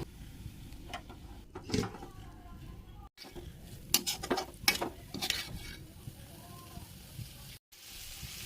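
Aloo methi (potatoes and fenugreek leaves) frying in a pan over a low sizzle, stirred with a spatula that scrapes and clicks against the pan several times, most of it between about four and five and a half seconds in.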